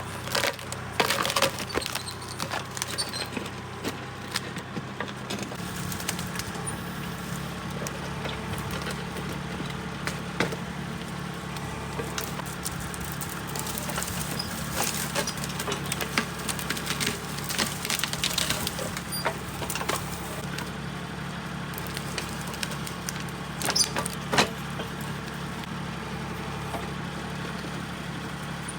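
Kubota compact tractor's diesel engine running steadily while its backhoe digs, with scattered cracks, knocks and scrapes as the bucket works into partly frozen ground. The engine note changes about five seconds in.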